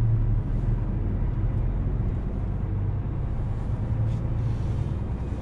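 Truck's diesel engine running with a steady low drone.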